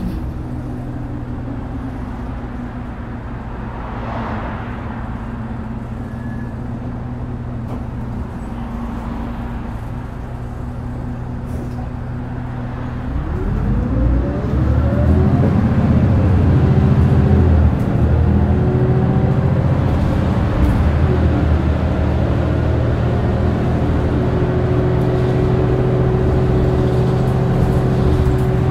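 Diesel engine of a Mitsubishi Fuso LKG-MP37FKF city bus idling steadily at a stop, heard inside the cabin. About 13 seconds in it revs up as the bus pulls away, rising in pitch through a few gear changes and getting louder, then settles into steady running.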